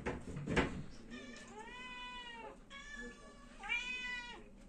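A thump right at the start, then a domestic cat meowing four times, the second meow long and drawn out and the last one the loudest. The cat is begging for food.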